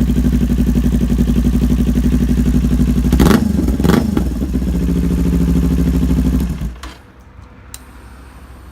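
Kawasaki Ninja 400's parallel-twin engine idling through a Musarri slip-on exhaust with the resonator removed, blipped twice in quick succession about three seconds in, settling back to idle, then shut off a little after six seconds.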